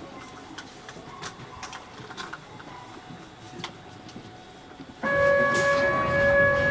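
Quiet train-and-platform ambience with scattered small knocks, then about five seconds in a steady electronic warning tone starts abruptly and holds: the door-closing buzzer sounding as the doors are about to shut.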